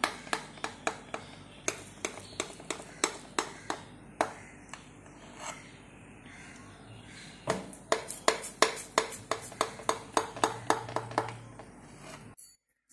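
Kitchen knife cutting a slab of set rava chocolate burfi in a glass baking dish, the blade clicking sharply against the glass again and again, about three to four clicks a second, with a pause in the middle. The sound cuts off suddenly near the end.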